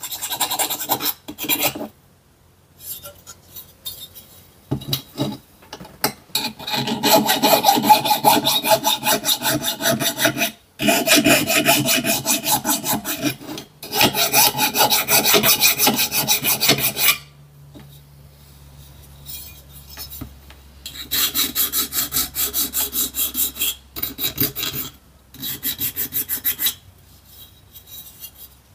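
A needle file rasping back and forth on the die-cast metal trailer of a Dinky Toys car transporter, smoothing the edges of its side openings. The strokes come quickly in several runs of a few seconds each, broken by short pauses.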